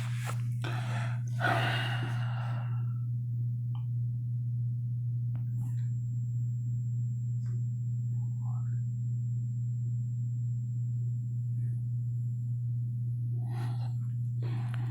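A steady low hum, with a few faint clicks and rustles, and a short stretch of voice at the start and again near the end.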